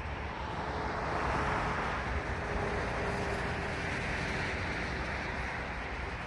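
Urban ambient noise with a passing vehicle, its noise swelling and easing off, and a faint steady hum under it.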